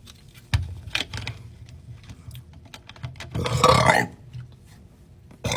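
Quiet clicks and rustles of handling, with one short rough throat sound, about half a second long, roughly three and a half seconds in.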